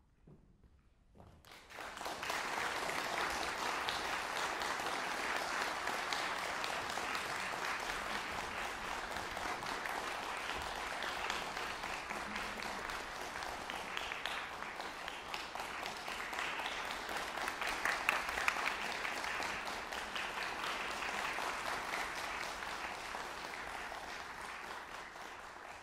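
Audience applauding, starting about two seconds in after a moment of quiet, holding steady and thinning out near the end.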